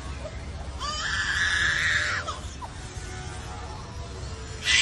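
An animal's harsh screeching call, one long cry about a second in that lasts about a second and a half, over a low steady hum.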